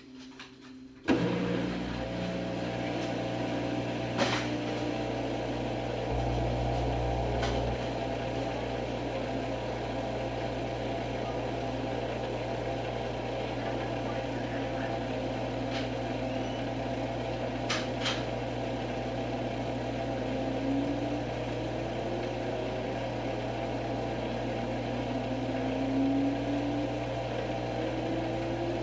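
Washing machine spin cycle starting about a second in, then running steadily with a low motor hum and drum rumble. A whine slowly rises in pitch in the second half as the drum speeds up, with a few faint clicks.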